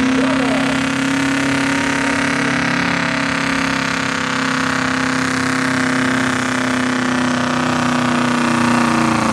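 V-8 engine of a hot rod pulling tractor running loud and steady at one engine speed, with no revving.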